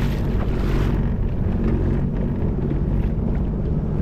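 Sea-Doo Fish Pro jet ski's engine running steadily, with wind buffeting the microphone, strongest in the first second.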